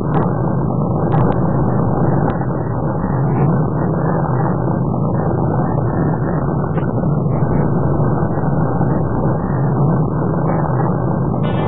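Steady, deep rumbling noise of the Energia heavy-lift rocket's engines at liftoff, dull and without any high end.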